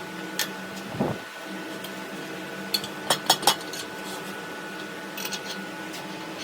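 A machine motor hums steadily, holding several steady tones, while metal parts or tools clink and tap: a low thump about a second in, a quick run of three sharp clinks about three seconds in, and lighter taps near the end.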